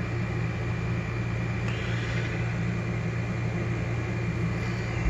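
Steady low hum of room background noise, with no distinct events.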